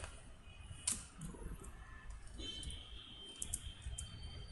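A few scattered computer keyboard clicks, single keystrokes with pauses between them, over a low background hum.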